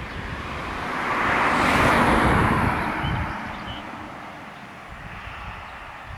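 A vehicle passing by: a rushing noise that swells to a peak about two seconds in and fades away over the next two seconds, with wind rumbling on the microphone.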